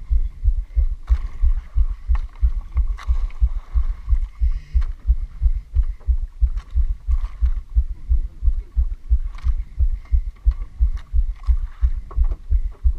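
Small outrigger boat's engine running slowly: a steady low throb of about three beats a second, with a few short knocks over it.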